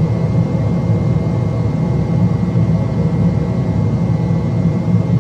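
Boeing 737NG full-flight simulator's takeoff-roll sound: a steady rumble of jet engines at takeoff thrust and wheels on the runway, with a thin steady high tone over it.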